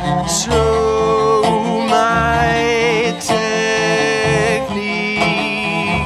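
Bowed cello playing a pop song, with a man singing over it.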